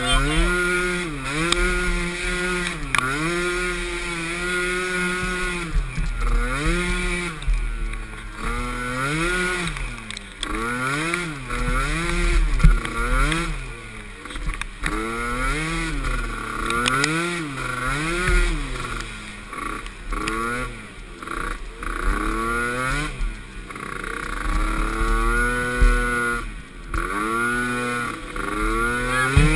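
Small youth (pee wee) ATV engine revving up and falling back again and again as the rider works the throttle around the race course, the pitch rising and dropping about once a second.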